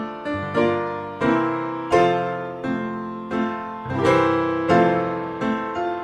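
Slow solo piano music: single notes and chords struck about every two-thirds of a second and left to die away.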